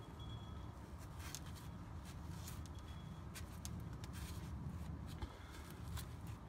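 Microfiber cloth wiping and rubbing grime off a metal transmission casing: scattered short scuffs and rustles over a steady low rumble.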